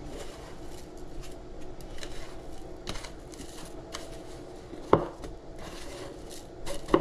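Catfish fillet being pressed and patted into a dish of crumb-and-flour breading: soft taps and rubbing, with a sharper knock about five seconds in.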